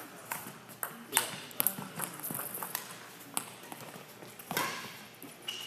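Badminton rally: sharp, irregular hits of rackets on a shuttlecock, mixed with footfalls on the court, and a high shoe squeak on the court floor just before the end.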